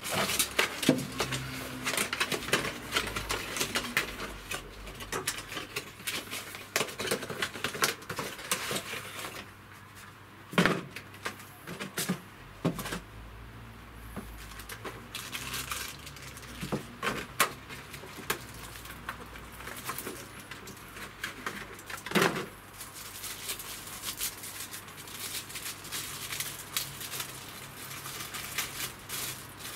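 Handling noises from fitting a handlebar phone holder: a steady run of small clicks, taps and plastic rustling, with a few sharper knocks scattered through.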